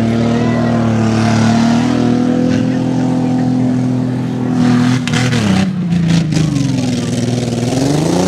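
Tough truck engine at high revs under hard throttle around a dirt track. The revs hold steady, drop off with a brief break-up about five seconds in, then climb again near the end as the driver gets back on the throttle.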